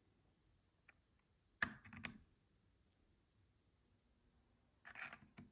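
Near silence, broken by a few faint clicks: one sharp click about one and a half seconds in with a short noise after it, and another short noise ending in a click near the end.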